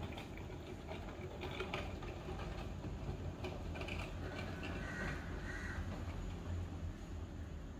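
Steady low background hum, with a few faint clicks and short higher-pitched sounds over it, the clearest about five seconds in.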